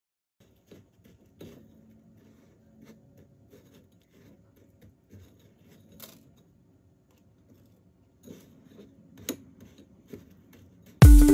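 Faint, scattered small clicks and light scraping, like handling of small objects. Loud electronic dance music starts suddenly near the end.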